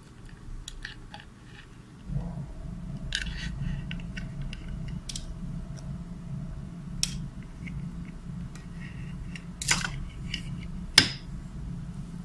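Handling noise of a thin antenna wire and a plastic enclosure being worked by hand: light rustles and small clicks, with a few sharp plastic clicks in the second half, the loudest near the end. A low steady hum comes in about two seconds in.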